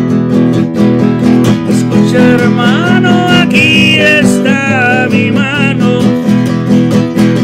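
Music: an acoustic guitar strumming chords in a steady rhythm, with a wavering higher melody line over it from about two to six seconds in.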